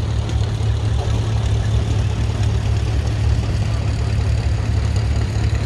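Several vintage farm tractor engines running steadily at low speed as the tractors drive slowly past in a line, the nearest being Oliver row-crop tractors.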